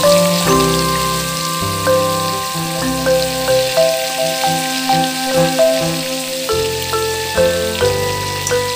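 Background music, a tune of short changing notes over a bass line, with a steady sizzle of chicken curry frying in the pan underneath.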